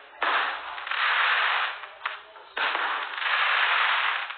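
Fireworks going off in a series: three bursts, each starting suddenly and fading away over about two seconds, roughly two and a half seconds apart.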